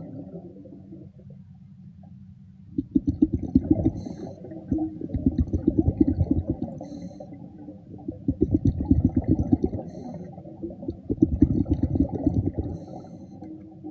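Scuba diver breathing underwater: four bouts of rumbling, bubbling exhalation about every three seconds, each followed by a brief hiss.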